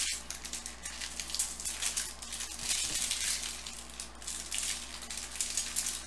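Foil trading-card pack wrapper crinkling and rustling as it is handled and opened, with the cards sliding and tapping against one another on the table: a steady run of short, crackly rustles.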